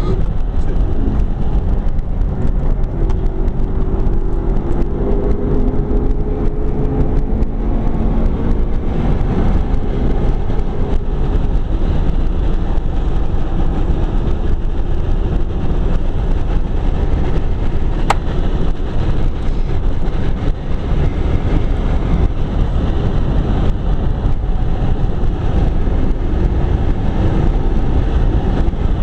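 McLaren 12C's twin-turbo V8 running hard at track speed, heard from inside the cabin over a heavy, steady rumble of road and tyre noise. The engine's pitch stands out most clearly in the first ten seconds, and a single sharp click comes about two-thirds of the way through.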